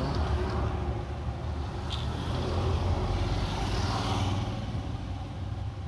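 Steady low rumble with a rushing noise that builds and fades over a few seconds, like a vehicle going by, and a single click about two seconds in.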